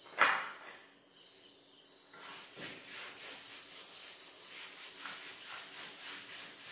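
A single sharp knock just after the start, then from about two seconds in a blackboard being wiped clean with quick, even rubbing strokes.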